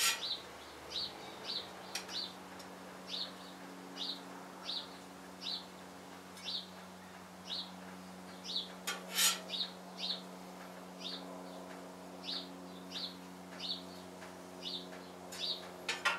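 A small bird chirping over and over, about one and a half short high chirps a second, over a steady low hum. Sharp clatters break in about two seconds in and, loudest, around nine seconds in.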